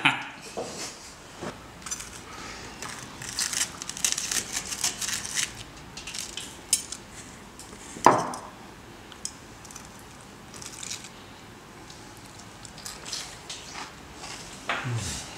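Fork and knife cutting into a crisp-battered fried fish fillet on a wooden board: crackling of the crust and scattered clicks of cutlery, with one louder knock about eight seconds in.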